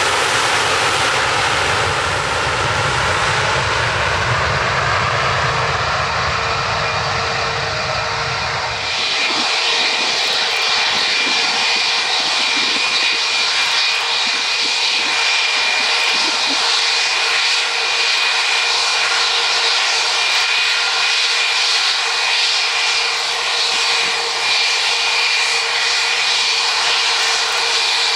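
Jet airliner engines running loud: a deep rumble over broad noise that changes abruptly about nine seconds in to a steady high-pitched jet whine over hiss, with the rumble gone.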